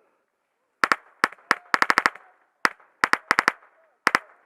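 Airsoft guns firing close by: sharp loud pops starting about a second in, some single and some in quick runs of three to five shots.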